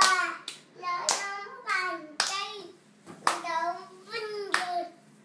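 A young child's high-pitched voice calling out a string of short syllables, each with a sharp start and a downward slide in pitch, with short pauses between.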